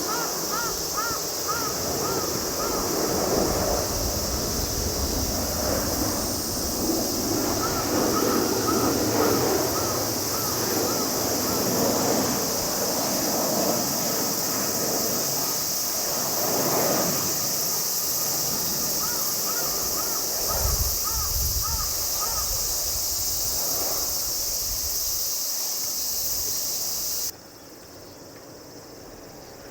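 Outdoor summer ambience: a steady high-pitched insect drone with a distant low rumble underneath. A bird calls three times in quick runs of short, evenly repeated notes. The drone cuts off abruptly near the end.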